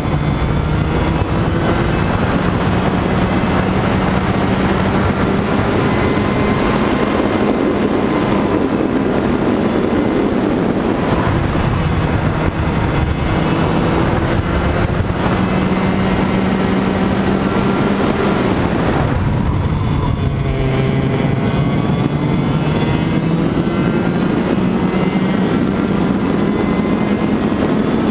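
Racing kart's two-stroke engine heard onboard at racing speed, its pitch climbing down the straights and falling as the driver lifts for corners, with a clear drop about two-thirds of the way through before it winds up again.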